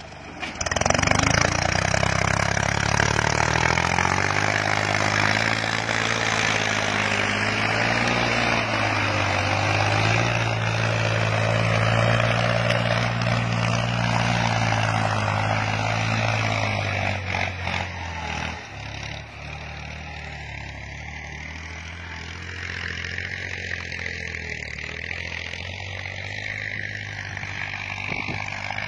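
New Holland tractor's diesel engine running under load as it pulls a plough through the soil. It is a steady engine note that drops noticeably in loudness about two-thirds of the way through as the tractor moves off.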